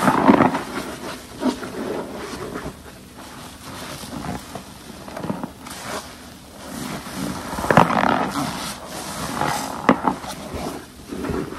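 Detergent-soaked car-wash waffle sponge being squeezed by hand: wet, foamy squeezing sounds in uneven swells, loudest near the start and again about eight seconds in, with a few sharp clicks soon after.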